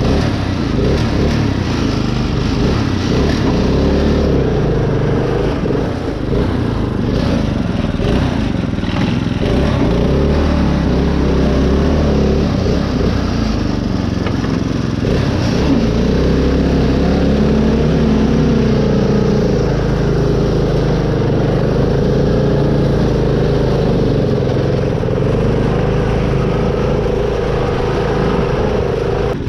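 Craftsman riding mower, built up as a mud mower, with its engine running under load as it drives over rutted dirt; the engine note rises and falls slightly with throttle and load.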